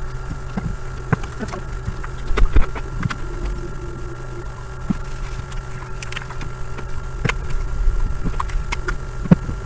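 Steady electrical hum with scattered light clicks and taps of small objects being handled.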